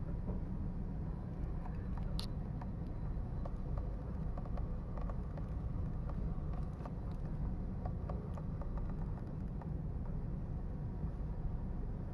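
Steady low background rumble with faint scattered clicks and ticks, and one sharper click about two seconds in.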